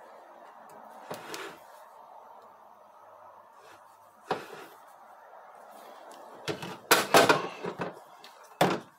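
Steel transmission parts clinking and clattering as a 6R80 planetary gear carrier is handled and turned by hand to check its pins and rollers for wear. There is a knock about a second in and another about four seconds in, then a run of louder metallic clatter from about six and a half seconds.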